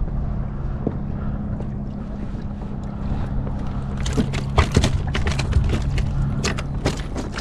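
Clicks and knocks of a just-landed fish being handled on a kayak, bunched between about four and seven seconds in, over a steady low rumble.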